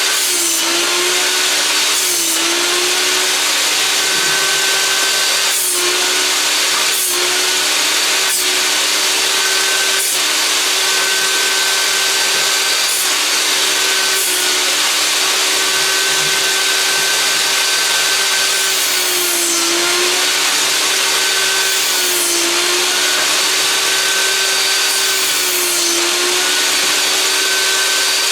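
Einhell table saw running steadily and cutting old boards into firewood lengths; the motor's pitch dips briefly several times as the blade bogs under each cut. Sharp knocks of wood pieces come every few seconds.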